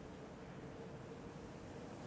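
Quiet room tone: a faint even hiss with one faint steady tone held through most of it.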